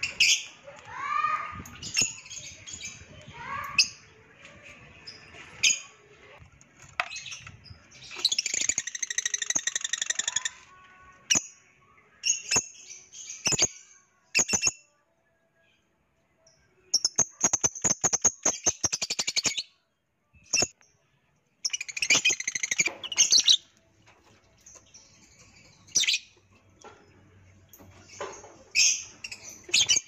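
Caged lovebirds calling loudly and shrilly, with sliding chirps, harsh screeching chatter and quick clicking calls in spells, broken by a couple of short silent gaps.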